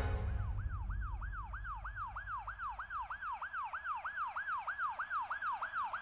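Emergency-vehicle siren on a fast yelp, its pitch sweeping up and down about three to four times a second, over a low rumble that dies away in the first second or two.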